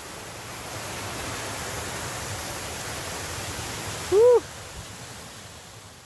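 Steady rush of water from a rain-swollen woodland stream and waterfall, fading slightly toward the end. About four seconds in, one short, loud hoot-like tone rises and falls in pitch.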